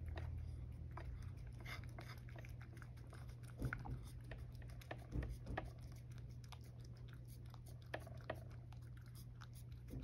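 A cat eating soft food, with small irregular wet chewing and licking clicks, a few louder ones in the middle, over a low steady hum.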